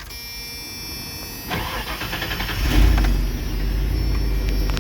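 1997 Ford F-250 HD's gasoline V8 being started on freshly replaced plug wires and distributor cap. The starter cranks from about a second and a half in, the engine catches about a second later, and it settles into a steady idle.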